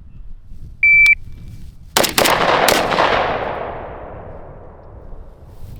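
A PACT Club Timer III shot timer gives a short, high start beep, and about a second later three gunshots follow in a Mozambique string: two shots in quick succession, then a third half a second later. The shots echo loudly and die away over the next few seconds.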